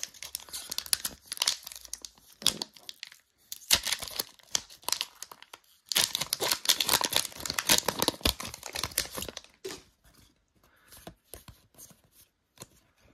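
Foil Naruto trading-card pack crinkling and tearing open in the hands, in repeated bursts of crackle. About ten seconds in it gives way to softer clicks and slides of the cards being handled.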